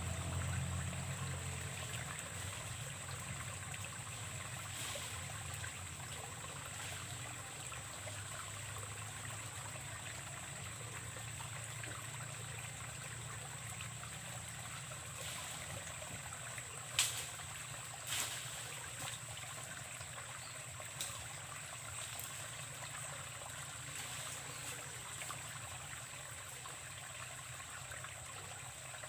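Water trickling and running steadily in a drainage ditch, with a steady thin high tone and two sharp clicks a little past halfway.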